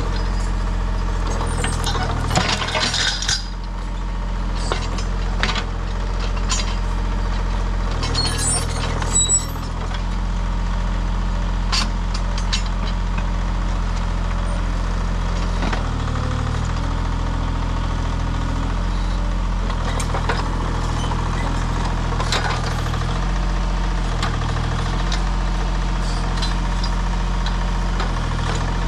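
Small crawler excavator's diesel engine running steadily as its ripper tooth digs into rocky soil. Clinks and scrapes of stones come in the first ten seconds, and the engine note shifts a few times as the hydraulics take load.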